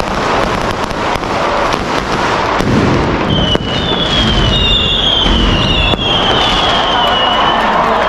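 Daytime fireworks going off: a continuous rapid crackle of firecrackers, joined from about three seconds in by several overlapping whistling rockets, each whistle falling slightly in pitch.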